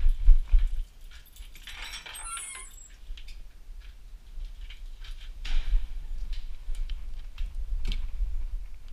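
Handling noise of a bicycle being moved and wheeled: bumps, clicks and rattles, with a short high squeak about two seconds in, over a low rumble from the body-worn camera.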